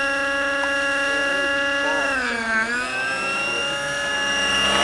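Nitro-engined RC helicopters flying overhead: a steady, high engine-and-rotor whine. About two seconds in the pitch dips and climbs back within about a second.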